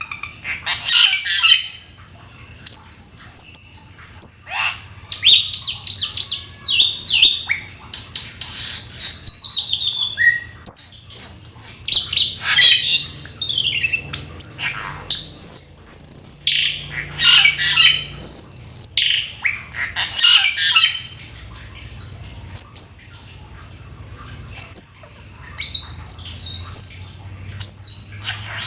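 A jalak keling, a starling-type songbird, singing a long, varied song of rapid whistles, squawks and chirps in quick runs. It sings in full voice, with mixed-in phrases ('full isian'). The singing pauses briefly about three-quarters of the way through, then starts again.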